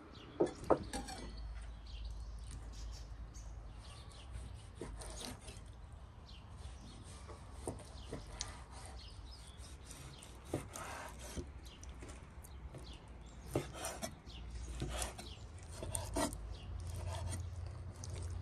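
Hand food preparation on a wooden board: irregular scraping and rubbing strokes with scattered knocks, two sharp knocks in the first second the loudest.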